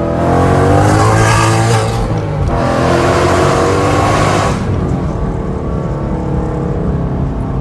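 2015 Mustang's 5.0 V8 exhaust through Corsa long-tube headers and a Corsa Extreme exhaust, accelerating hard with rising pitch, dropping at a gear change about two and a half seconds in and pulling up again. Near the halfway point the throttle lifts and it settles to a quieter, steady lower drone.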